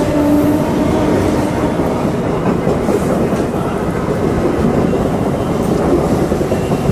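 Air-conditioned EMU suburban local train, AC rake 7004, running close past as it departs: a loud, steady rush of steel wheels on rail from the passing coaches. A low hum fades out in the first second or two.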